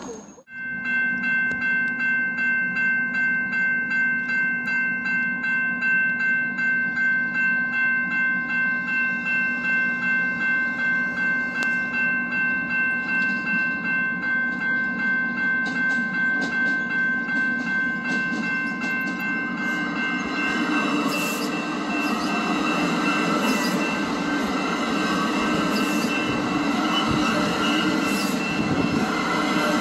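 A railway bell ringing steadily about twice a second as an Exo commuter train approaches. About twenty seconds in, the rumble and wheel noise of the train rise and fill the sound under the bell.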